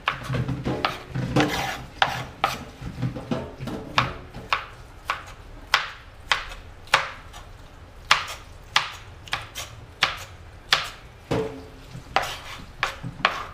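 Kitchen knife chopping sweet pepper on a plastic cutting board: a steady run of sharp knocks, about two cuts a second.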